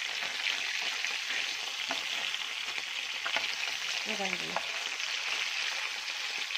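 Hot oil sizzling steadily around rava-coated Indian mackerel shallow-frying in a pan, the fish fried through and crisp, with a few faint clicks.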